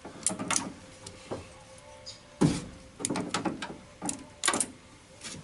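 Metal clicks and clatter of hand tools and small fasteners being worked on a car door, in short bursts, with a single sharp knock about two and a half seconds in.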